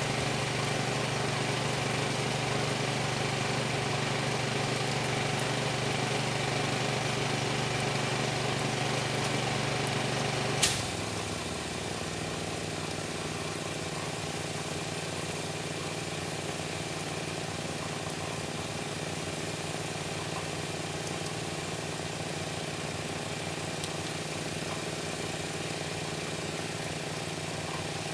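Gasoline pressure washer engine running steadily. About a third of the way through there is one sharp click, and the engine carries on quieter, its low note changed.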